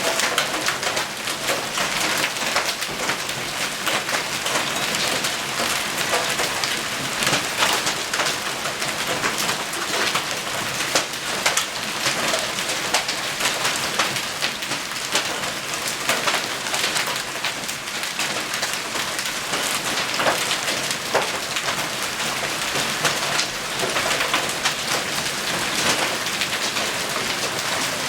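Heavy storm downpour with hail: a dense, steady hiss of rain on surfaces, peppered throughout with many sharp individual hailstone impacts.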